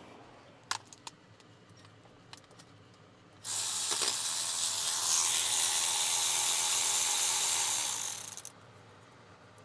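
Power ratchet spinning a bolt out. A few light tool clicks come first, then the ratchet runs steadily for about five seconds, starting suddenly and trailing off at the end.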